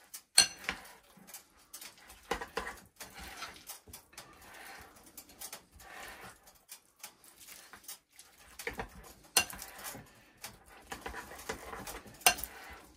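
Metal spoon stirring a thick batter of flour and corn kernels in a glass mixing bowl: uneven wet scraping, with a few sharp clinks of spoon on glass, the loudest just after the start.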